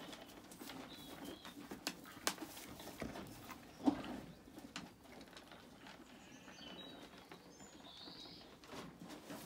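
Small birds chirping briefly now and then over a low steady cooing, with a few sharp knocks; the loudest is a short burst about four seconds in.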